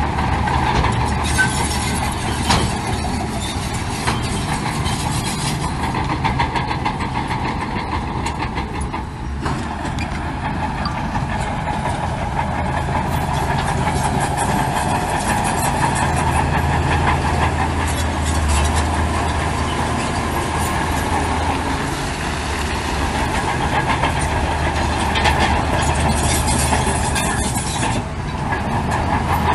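Heavy diesel construction machinery running steadily, with a deep engine hum that grows louder in the middle and a few short metallic clanks in the first few seconds.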